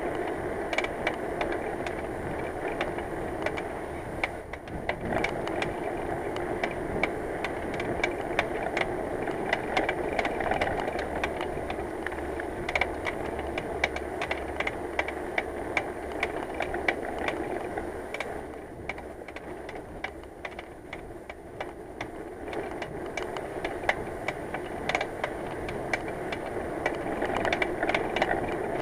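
Bicycle being ridden, with steady road and wind noise and a run of irregular clicks and rattles from the rear hub, a noise that is getting worse and that the rider fears means the hub is about to seize.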